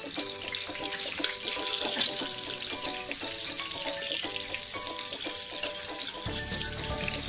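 Brinjal wedges sizzling as they fry in hot oil in a frying pan, a dense steady crackle, with background music playing alongside.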